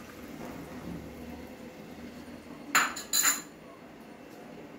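Buttermilk trickling in a thin stream into a kadai of tempering, a faint steady sound, then two sharp clinks of kitchen utensils a little under three seconds in, about half a second apart.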